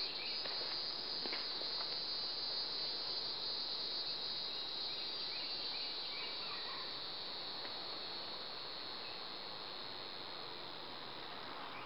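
A steady, high-pitched chorus of insects trilling, easing off slightly toward the end.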